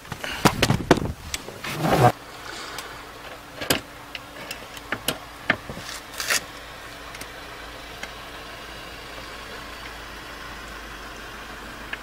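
Wind and water rushing past a moving inflatable boat, then a few sharp clicks and knocks from hands working on a Yamaha outboard motor, which fade into a faint steady hum.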